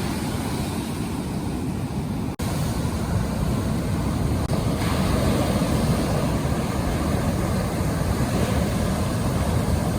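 Steady surf washing on a beach, with wind rumbling on the microphone; a brief break about two seconds in.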